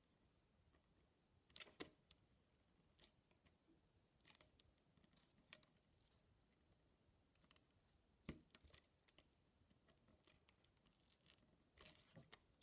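Faint scratching and crinkling of thin metal foil from a tomato puree tube as a ballpoint pen is pressed and drawn across it over a cardboard backing, in scattered short strokes, with a sharper tick about eight seconds in and a cluster of scrapes near the end.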